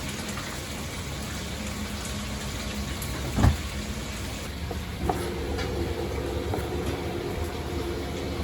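Commercial kitchen background noise: a steady hum with a single knock about three and a half seconds in. From about five seconds a second, steadier pitched hum joins, with a few light clicks.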